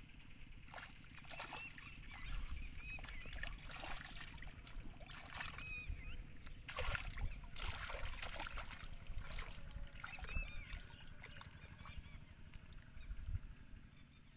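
Hands and bare feet splashing and sloshing in shallow muddy water while fish are grabbed by hand, a string of short irregular splashes. Wind rumbles on the microphone underneath, with a few faint high chirps.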